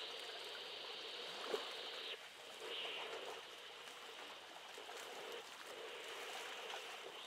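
Faint, steady rush of flowing water, like a stream, with a few small ticks.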